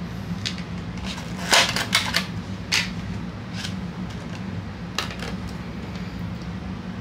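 Stiff plastic packaging insert being pried at and handled: a series of irregular clicks and short crackles, the loudest about one and a half seconds in.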